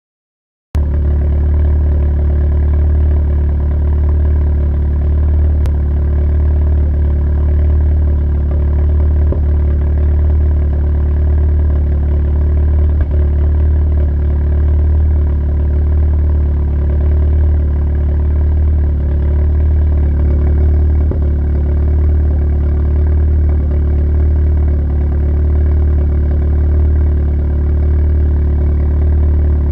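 Car engine idling steadily with a few faint brief knocks, which the owner takes for a misfire at idle and suspects lies around the intake manifold.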